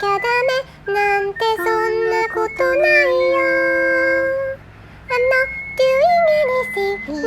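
Singing in a high, child-like voice with very even held notes, over light backing music; one long note is held near the middle, then a short break before the melody resumes.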